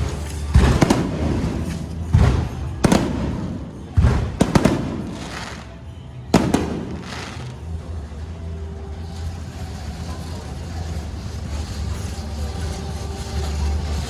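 A fireworks display going off: about six sharp bangs, each trailing off in a rumbling echo, in the first seven seconds, then a steady low rumble for the rest.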